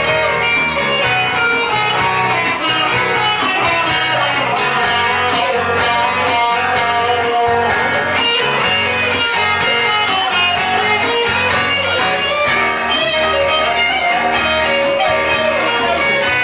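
A live band playing loud and steady, with a lead electric guitar over strummed acoustic guitars.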